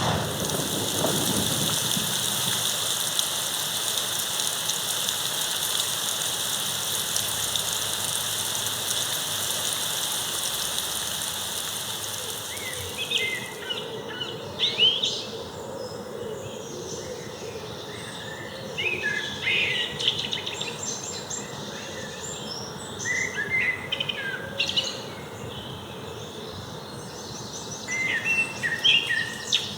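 Nature-sound recording played back as a speaker sound test: a steady rain-like rushing for about the first twelve seconds, then it eases off and scattered short bird chirps come and go over a quieter background.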